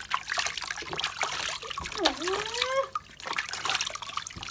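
Bath water trickling and splashing in a small basin with many small drips and splashes, and a short squeak that dips and then rises, about two seconds in.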